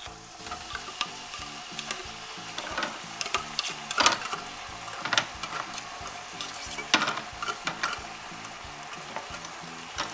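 Steady frying sizzle from a toy play kitchen's pan, with a few sharp plastic clacks of toy food being handled, the loudest about four seconds in and again about seven seconds in. A quiet simple tune plays underneath.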